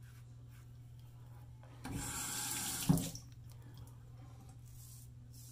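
A bathroom sink tap runs for about a second, ending in one sharp knock, over a steady low hum.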